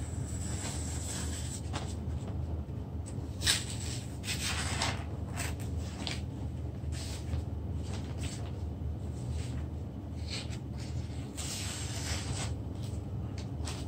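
Irregular rubbing and scraping strokes of varying length, with one sharp knock about three and a half seconds in, over a steady low hum.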